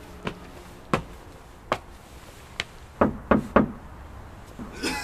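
Footsteps up a short flight of outdoor steps, single scattered steps, then knuckles knocking three times in quick succession on a panelled front door.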